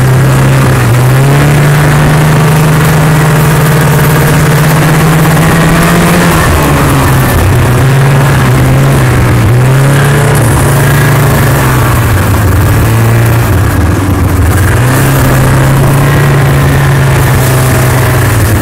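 Snowmobile engine running loud and close, its pitch rising and falling several times as the throttle is opened and eased off.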